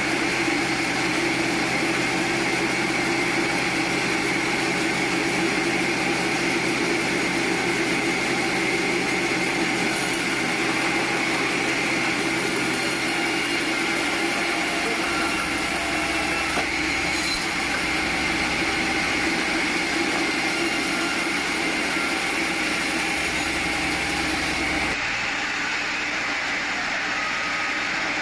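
Sawmill machinery running steadily: a continuous mechanical drone. It changes abruptly near the end, losing some of its low end.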